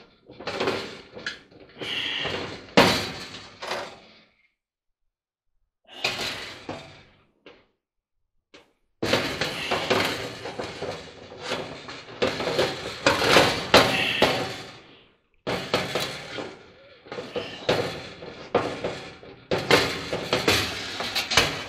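Irregular metal clattering, knocking and scraping inside a clothes dryer cabinet as a nut driver is worked against the sheet metal while trying to line up a screw. The sounds stop twice, about four and about eight seconds in.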